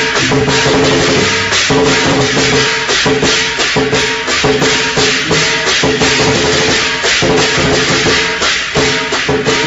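Background instrumental music with a fast, steady percussion beat over held notes.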